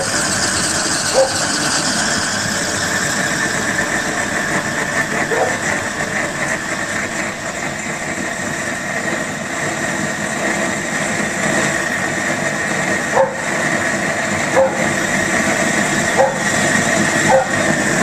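Homemade gasoline torch for a model steam boiler, burning at full output with a steady rushing flame noise, broken by a few short pops.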